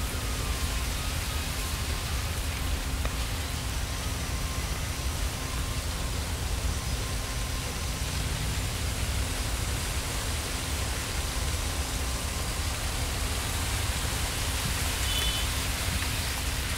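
Steady outdoor wind, an even hiss of air moving through plants, with a gusty low rumble of wind on the microphone. A brief high chirp, likely a bird, comes near the end.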